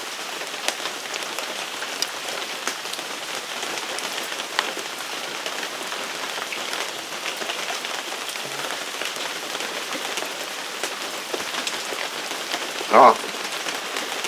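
Steady rain pattering, with many small scattered drop ticks. Near the end a brief vocal sound breaks in.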